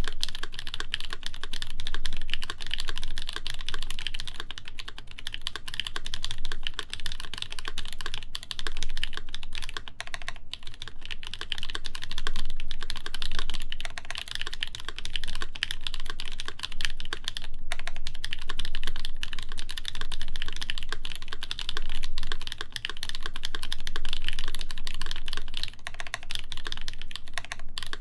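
Continuous fast typing on a mechanical keyboard: a RAMA WORKS U80-A with a brass plate, lubed NK Cream linear switches and GMK keycaps, keystrokes running together into a steady stream of clacks.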